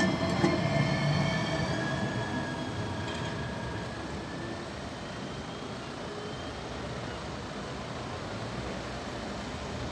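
A Twisto low-floor tram passing close and pulling away on a curved track: a rumble with a steady high whine that fades over the first few seconds, leaving a steady low background noise.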